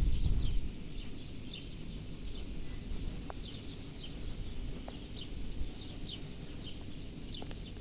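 Small birds chirping in quick, irregular short calls, over a steady low background rumble that is louder in the first half-second.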